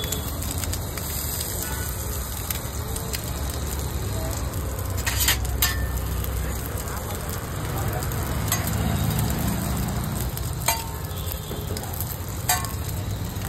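Eggs frying in a hot pan with a steady sizzle, the three-egg base of Anda Lahori. A cooking utensil clicks sharply against the pan a few times.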